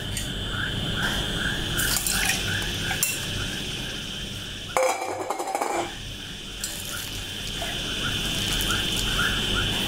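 Soaking water draining from shredded banana blossom in a metal sieve into a bowl, then the wet shreds squeezed by hand, with a few light clicks of the sieve against the bowl. Behind it runs a steady outdoor chorus of insects and frogs, a high buzz with chirps about three a second.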